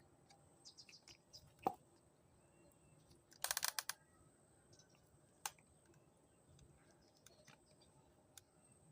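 Scattered light clicks and taps, with a quick run of rapid taps about three and a half seconds in, over faint bird chirps.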